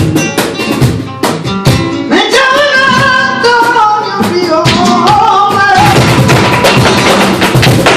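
Flamenco music: plucked guitar strokes, then a singer's wavering, ornamented line over them. About six seconds in it gives way to a denser sound full of sharp percussive strokes.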